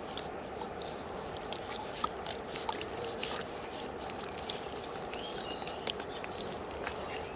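Steady outdoor background hiss with light scattered clicks and a faint high, rapidly pulsing whine.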